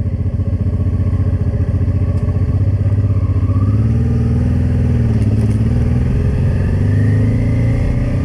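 Honda Transalp motorcycle engine running under way as the bike is ridden. Its pitch rises and falls gently with the throttle through the middle and climbs again near the end.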